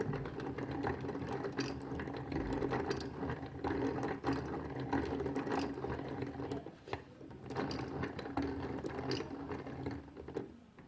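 3D printer running a print: a steady whirring hum from its stepper motors with many quick clicks and ticks as the head moves, easing briefly about seven seconds in.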